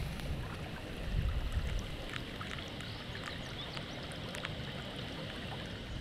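Heavy rain falling in a steady hiss, with gusty wind buffeting the microphone and scattered ticks of drops striking close by.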